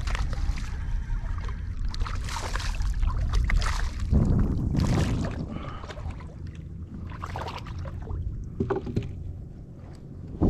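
A hooked trout splashing and thrashing at the water's surface beside a kayak, the splashes strongest about four seconds in and dying down after, over a steady rumble of wind on the microphone.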